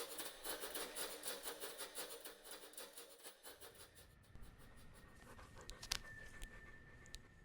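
Quick, even panting breaths like a dog's, fading out over the first few seconds. Then only a faint low hum with a thin steady high tone and a couple of small clicks.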